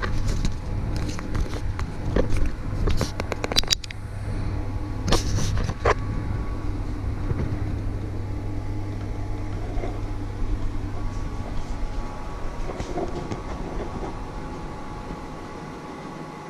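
Steady low hum of a running kitchen appliance, with sharp clinks and knocks of cookware being handled during the first six seconds. The hum fades slightly near the end.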